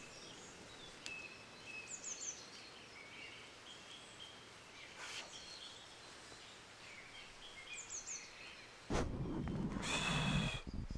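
Faint woodland birds calling: scattered chirps and short whistles, with a pair of quick high downward notes twice. Near the end, a louder rustling-type noise comes in under the birds.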